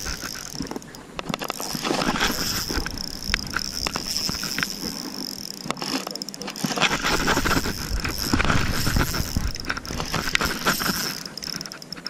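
Spinning fishing reel being cranked, a quick ticking whir from its gears and line roller, with wind rumbling on the microphone.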